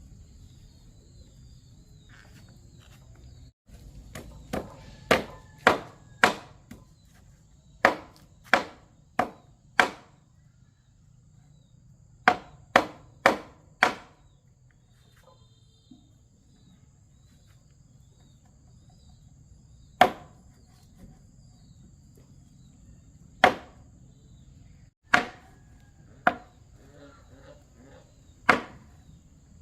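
A series of sharp strikes, like chopping: three quick runs of about four blows, then single blows a few seconds apart. A faint steady insect buzz carries on behind.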